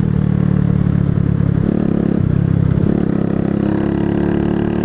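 125cc cruiser motorcycle engine running under way; its note breaks and changes pitch a little after two seconds in, then runs steadily again.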